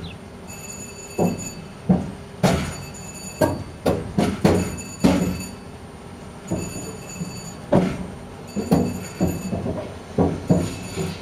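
Railyard turntable turning with a passenger club car aboard: irregular metal clunks and knocks, bunched several together around four to five seconds in and again near the end. Under them runs a steady low hum, and a faint high whine comes and goes.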